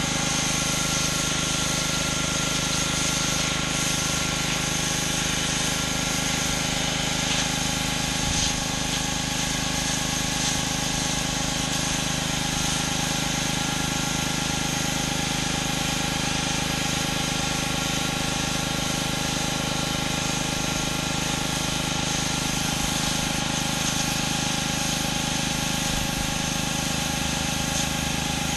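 Pressure washer's engine running steadily, with the hiss of high-pressure water spraying onto concrete.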